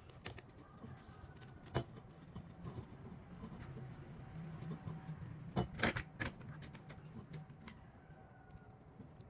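Faint handling noises at a workbench: a few scattered clicks and knocks of small hard parts or tools being handled, the loudest cluster about six seconds in, over a low steady hum.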